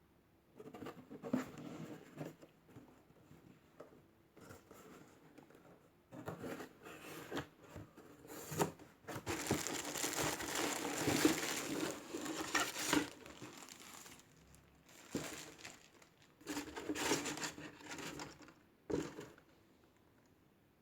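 Packaging crinkling and rustling in irregular bursts as it is handled and torn open, busiest from about nine to thirteen seconds in.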